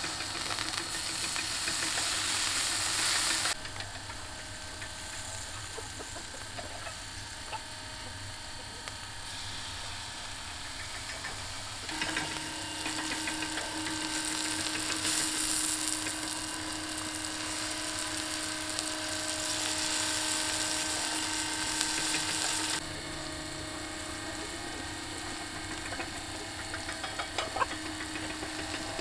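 Herb marinade and fish fat sizzling and hissing on hot coals under a spit-roasting salmon as it is basted. The sound comes in stretches that cut in and out sharply, with a steady low hum through the middle stretch.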